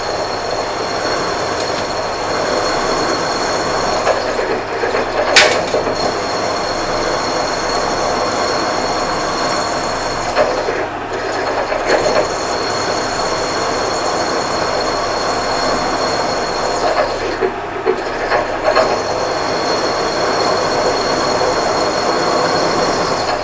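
Machine-shop drill running and cutting into a steel workpiece with drilling compound: a steady motor whine under a rough cutting noise, with a brief sharp screech about five seconds in. The cut is nearing breakthrough of the hole.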